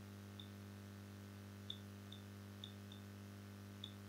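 Faint, irregular computer mouse clicks, about six short ticks, over a steady low electrical hum.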